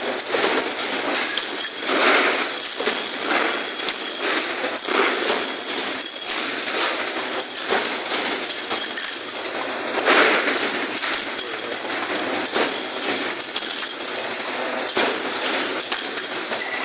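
Production machine running: continuous clattering and knocking with a thin, steady high-pitched whine over it.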